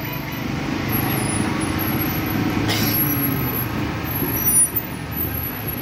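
Low, steady rumble of a large vehicle's engine running at idle, with a short hiss near the middle.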